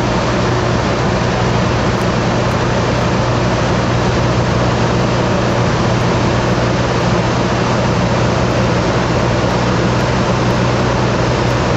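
Light aircraft's engine and propeller heard from inside the cabin in flight: a steady, unchanging drone with a constant low hum under a wash of airflow noise.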